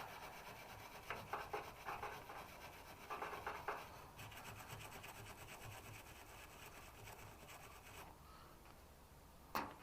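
A small brush scrubbing around broken-off screws in the car body's metal, in short scratchy strokes through the first four seconds and fainter after. A single sharp click near the end.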